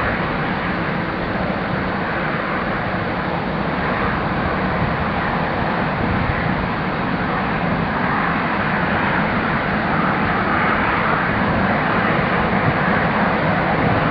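Boeing 747-400's four jet engines running at low taxi thrust as the airliner rolls slowly toward the runway: a steady jet roar and whine that grows a little louder toward the end.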